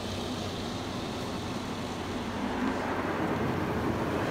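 Touchless automatic car wash (PDQ LaserWash 360 Plus) spraying soap and water onto the car, heard from inside the cabin: a steady rushing spray that grows louder in the second half as the jets drench the side window.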